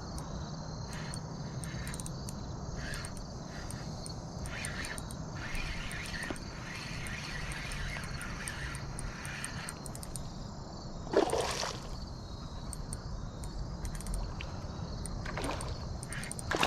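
Crickets and other insects chirping over a steady low background hum. One sudden loud burst about eleven seconds in.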